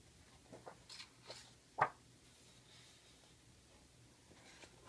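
Paper pages of a large hardcover book being turned by hand: a few brief rustles, then a short knock a little under two seconds in as a page comes down, and fainter rustling near the end.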